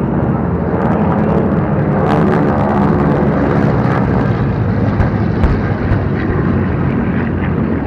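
Propeller warplanes flying low past the crowd, their piston engines making a steady drone, with a couple of dull bangs from the show's pyrotechnic explosions about two and five seconds in.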